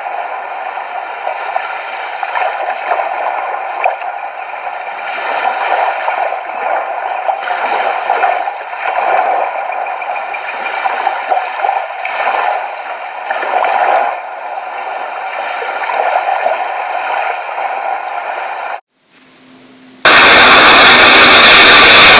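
Water sloshing and gurgling, uneven and continuous. It cuts off sharply, and near the end a sudden, very loud, even hissing rush of a crashing ocean wave begins.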